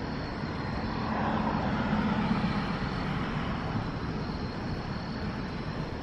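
Helicopter heard as a steady rushing drone with a low hum, swelling between about one and three seconds in and then easing.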